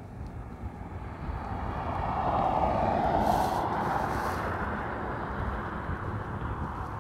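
A vehicle passing on the highway: its tyre and road noise swells to its loudest about three seconds in, then fades slowly as it moves away.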